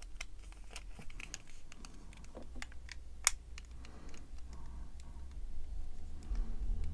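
Small plastic model kit parts of a 1:144 Revell Sikorsky CH-53G being pressed and fitted together by hand: scattered light clicks and taps of styrene, with one sharper click a little over three seconds in, as unglued parts are dry-fitted to see if they locate. A low hum runs underneath.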